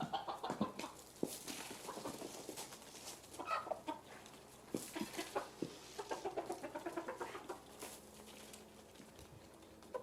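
Domestic chickens clucking: a string of short, repeated calls.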